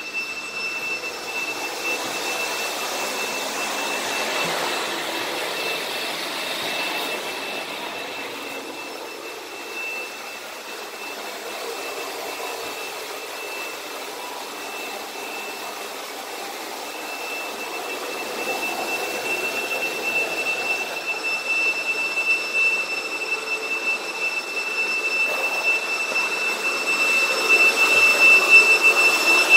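Backpack vacuum cleaner running, a steady high-pitched motor whine over rushing air; it eases off in the middle and grows louder near the end.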